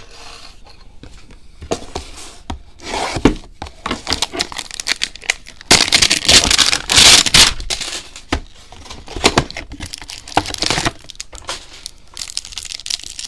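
A trading card pack wrapper being torn open and crinkled by hand. The loudest part is a long tear of about two seconds beginning near six seconds in, with scattered handling rustles and clicks around it.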